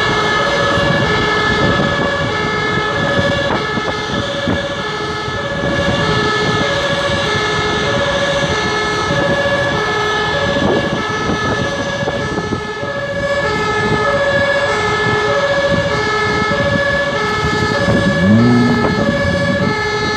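German two-tone emergency-vehicle siren (Martinshorn) sounding continuously, a lower and a higher note alternating about once a second, over a steady high whine and rushing noise.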